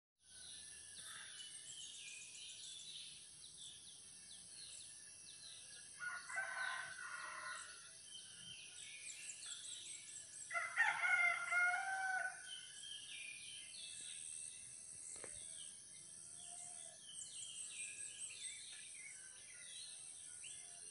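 Outdoor ambience: a rooster crows twice, about six and eleven seconds in, the second crow longer and louder. Small birds chirp and a high insect buzz runs steadily underneath.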